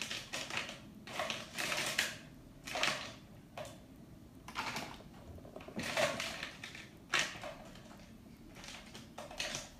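Hands rummaging through a collection of lip liner pencils, the plastic pencils clattering and scraping together in irregular short rattles and clicks.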